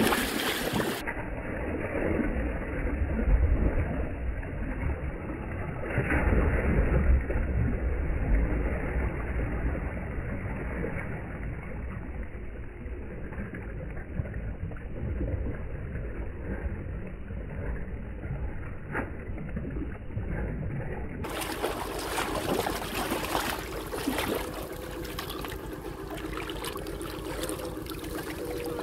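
Shallow river water splashing and sloshing as a person wades and grabs at fish by hand. Wind rumbles on the microphone in the first several seconds.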